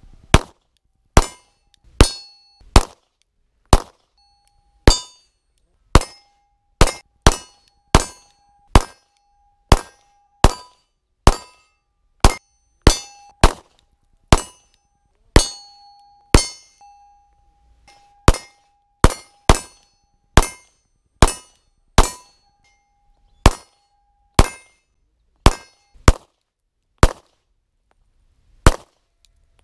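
Glock 19 9×19 mm pistol firing shot after shot, each a sharp crack that dies away quickly, mostly one to two shots a second with a few longer pauses.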